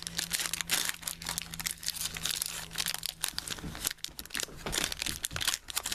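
Foil wrapper of a Pokémon trading-card booster pack crinkling and tearing as it is opened by hand: a dense, irregular run of crackles.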